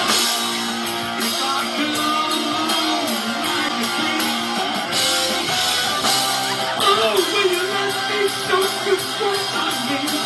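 Rock band music: guitar-driven with some singing over it.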